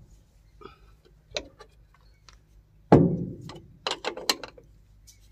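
Steel ring spanner clicking and clanking on the nuts of a bearing flange bolted to a thresher auger's sheet-metal housing as they are tightened. A few light clicks, then one loud metal clank about three seconds in that rings on briefly, followed by a quick run of sharp clicks.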